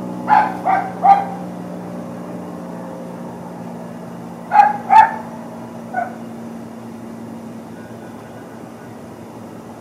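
An animal barking: three quick barks near the start, then two more and a fainter single bark a few seconds later, over a steady engine hum that slowly fades.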